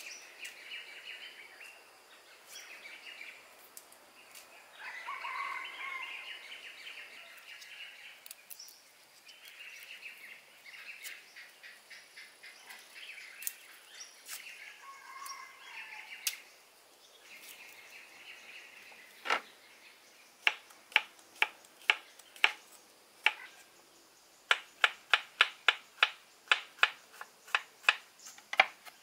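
Birds chirping and singing through the first half. From about two-thirds of the way in, a kitchen knife chops garlic on a wooden cutting board: sharp, even strokes about two a second, quickening to about three a second near the end.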